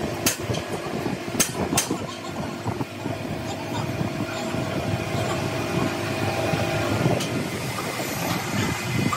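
Crankshaft grinding machine running steadily: a continuous mechanical hum with a few steady tones through it. A few sharp clicks come in the first two seconds.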